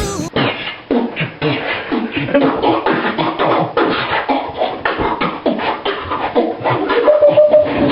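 Beatboxing: a fast run of mouth-made percussion strokes mixed with short pitched vocal sounds.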